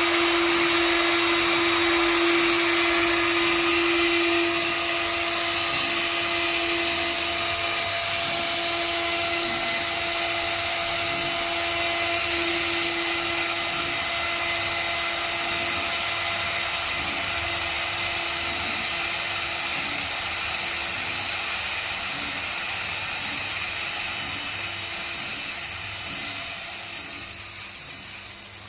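CNC router's trim-router spindle running at speed while the machine cuts, a steady high whine over a lower hum. It grows quieter over the last few seconds.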